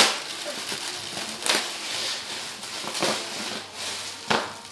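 Clear plastic packaging crinkling and rustling as a child pulls and tugs at it, with sharper crackles about every second and a half.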